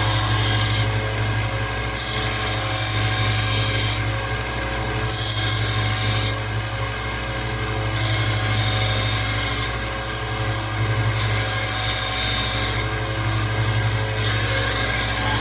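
Rikon 1x30 belt sander running steadily while a knife blade is pressed to the belt in repeated passes, a grinding hiss rising and falling every second or two as the bevel is ground down to reprofile the edge.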